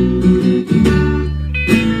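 Guitar music: chords strummed over sustained low notes, with a strong new strum near the end.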